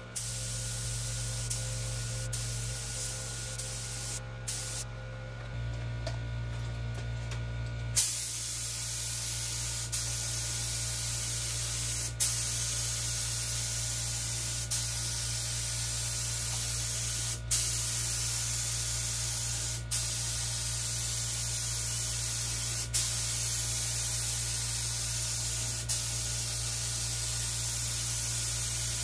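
Gravity-feed air spray gun hissing as it lays a second coat of sealer on a bare car body. The hiss starts about eight seconds in and breaks off briefly every two to three seconds as the trigger is let go between passes. A steady low hum runs beneath it throughout.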